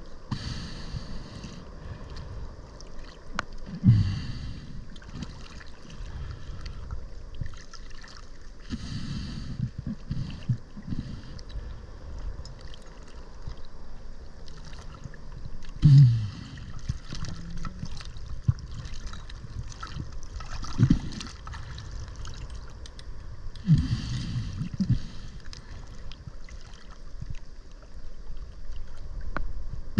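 Water sloshing and bubbling around a diver's camera, with a low churning rumble. Every few seconds a diver's breath hisses.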